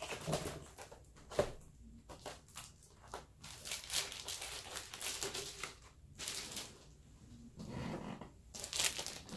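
Packaging crinkling and rustling in irregular bursts as it is handled and pulled apart, with a few sharp crackles, while the award plaque is unwrapped from its box.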